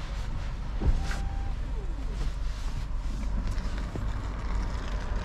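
Low, steady rumble of a Tesla rolling slowly, heard from inside the cabin: electric, so mainly tyre and road noise, with one sharp thump about a second in.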